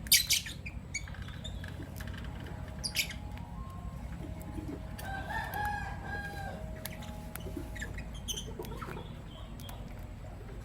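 Lovebirds chirping: short, sharp, high calls, the loudest right at the start and another about three seconds in, with a longer drawn-out call in the middle, over a steady low hum.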